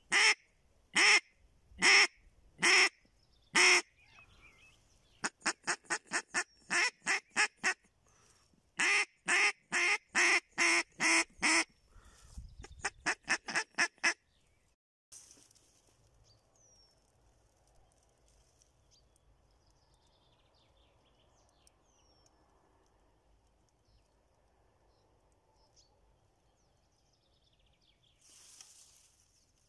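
Hand-held duck call blown to imitate a mallard hen, the quacking used to lure drakes: five long loud quacks about a second apart, then two fast runs of shorter quacks and a fainter quick series. After about 14 seconds it stops, leaving a quiet background with a few faint bird chirps.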